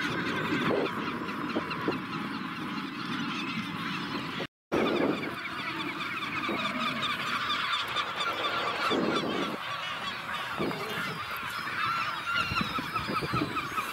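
Magellanic penguin colony calling: many overlapping calls in a dense, continuous chorus. The sound drops out for a moment about four and a half seconds in.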